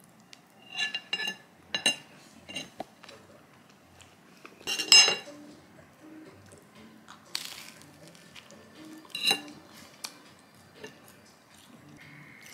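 Steel knife and fork clinking and scraping against a ceramic plate: a string of short sharp clinks, the loudest about five seconds in.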